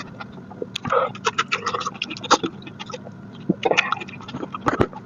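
Close-miked, wet chewing and lip-smacking of someone eating mutton curry with rice, with irregular clicks and smacks and a sharper smack near the end.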